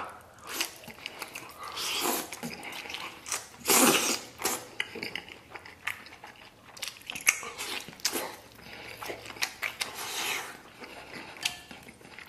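A man biting into and chewing a large slice of braised pork belly (ba zi rou) with rice, the chewing coming in uneven bursts, loudest about four seconds in.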